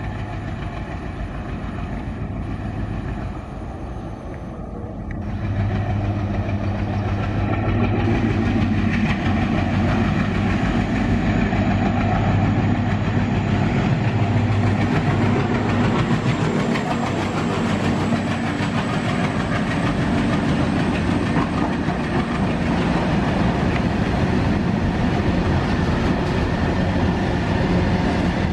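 Indian Railways WDM-series diesel locomotive running through the station with its engine rumbling, growing louder about five seconds in as it draws near, followed by a long rake of covered freight wagons rolling past on the rails.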